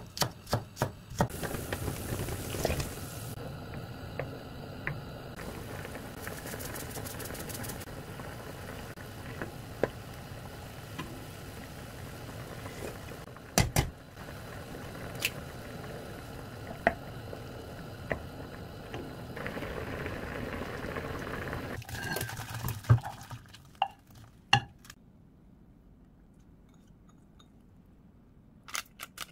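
A knife chopping green onions on a wooden cutting board, a few quick strokes, gives way to a pot of tteokguk (Korean rice-cake soup) boiling on a gas stove with a steady bubbling hiss. A sharp knock comes about halfway through. The sound drops to a faint hush near the end.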